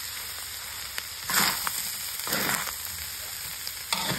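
Minced rat meat and shredded pickled bamboo shoots sizzling in a metal wok. A metal spatula scrapes against the pan three times as it stirs.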